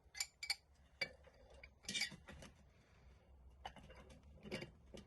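Metal hand tools clinking and scraping against a rusted bicycle freewheel as it is being worked loose: a scatter of light clanks and clicks, the loudest about two seconds in.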